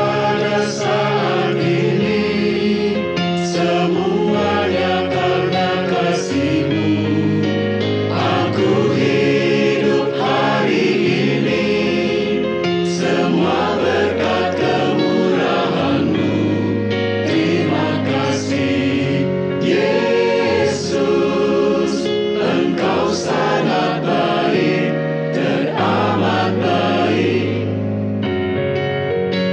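Mixed church choir of men's, women's and a child's voices singing a hymn in Indonesian. The voices stop about two seconds before the end, leaving only the sustained accompaniment.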